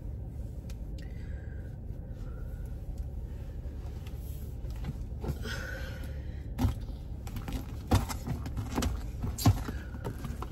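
Steady low rumble inside a car, with a handful of sharp clicks and knocks in the later part.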